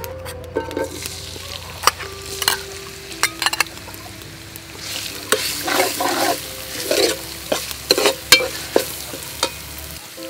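A metal ladle stirs and scrapes spice paste with red chillies frying in hot oil in a metal pot, and the paste sizzles. Sharp clicks of the ladle on the pot come in the first few seconds. Repeated scraping strokes follow from about halfway through.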